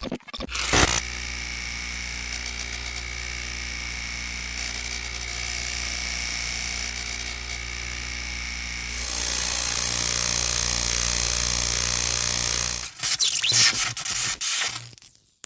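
Digital glitch sound effects: a steady electronic buzz made of many held tones, stepping up louder and brighter about two-thirds of the way through. It cuts off suddenly and gives way to a couple of seconds of erratic stuttering bursts.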